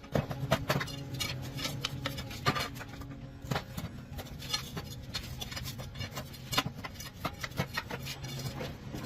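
Irregular clicks and taps, as of tools and metal parts being handled during gearbox repair, over a steady low hum.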